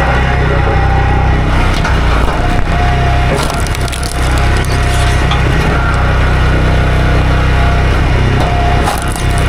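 A small gasoline engine running steadily at work on wood.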